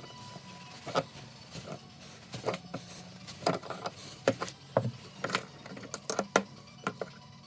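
A run of irregular sharp clicks and knocks, several a second at times, like metal parts and tools being handled during hand repair work, over a steady low hum.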